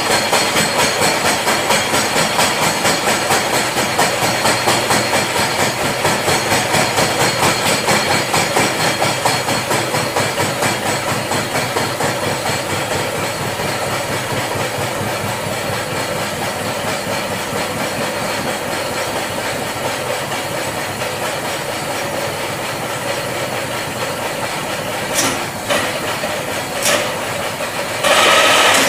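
Vertical milling machine's face mill cutting across a metal workpiece: a steady grinding machine noise with a pulsing rhythm that eases after about ten seconds. A few sharp clicks near the end, then a brief louder burst.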